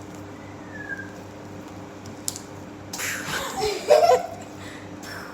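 A girl giggling briefly, about three seconds in.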